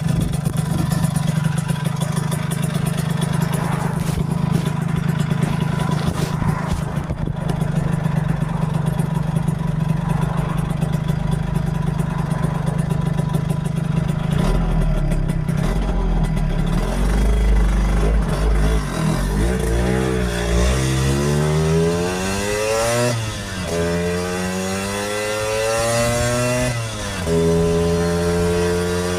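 1964 Lambretta Series 3 scooter's two-stroke single-cylinder engine running at a steady speed, then revving up through the gears: its pitch climbs, drops sharply at a gear change, climbs again and drops at a second change near the end, then holds a higher note.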